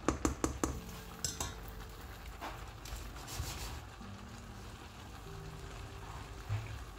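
A plastic slotted spatula stirring rice in a stainless steel pot, knocking and scraping against the pot several times in the first second or so. The rice then sizzles softly as the last of its cooking water cooks off.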